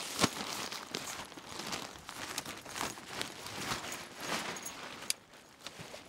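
Fabric of a pop-up photo blind rustling and crinkling in irregular bursts as it is handled and unfolded, with a sharp click just after the start and a smaller one near the end.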